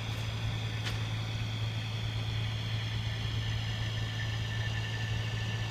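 Truck engine idling steadily: an even low hum with a faint steady high whine above it, and one brief click about a second in.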